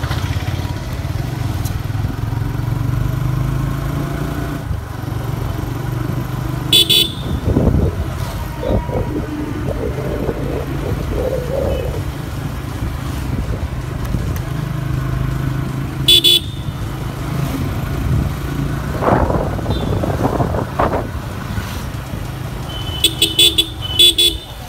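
TVS Apache RTR motorcycle engine running steadily while riding, with short horn beeps about a third of the way in, again about two-thirds in, and a quick run of several beeps near the end.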